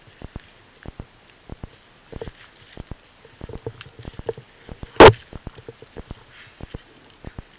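Irregular light knocks and taps from the action camera being jostled as it moves about in the rapeseed, several a second, with one much louder bump against the camera about five seconds in.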